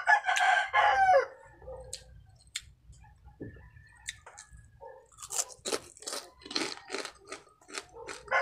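A rooster crows once at the start, one call of about a second that falls in pitch at its end. Then crisp crunching and chewing of fried baby crab close to the microphone, turning into a quick run of sharp crunches in the last few seconds.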